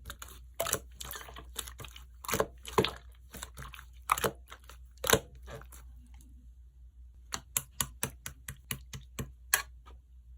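Clear slime being squeezed and pressed by hand, giving sharp, irregular clicks and pops. After a short lull, a faster run of clicks comes at about four a second.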